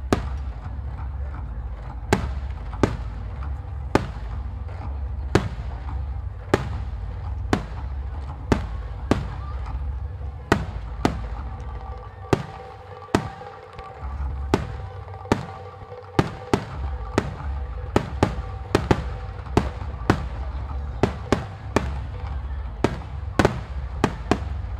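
Starmine fireworks barrage: a long run of sharp shell bangs over a low steady rumble, spaced about a second apart at first, then coming several a second in the second half.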